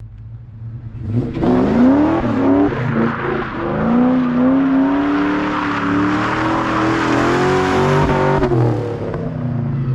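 A car engine revving in a few short rises, then one long, slowly climbing pull, before it stops suddenly.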